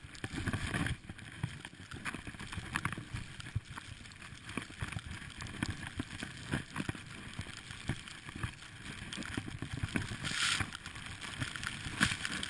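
Skis running through deep powder snow: a continuous rushing hiss broken by irregular swishes and soft knocks as the skier turns, with snow spray and wind buffeting the helmet-mounted camera. A louder hiss of spray comes about ten seconds in.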